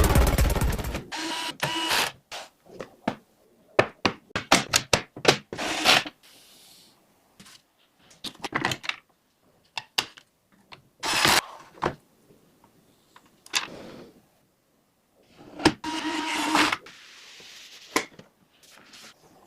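Background music ends about a second in, then irregular sharp clicks, snaps and short scraping rustles of computer parts being handled and fitted together during a PC build.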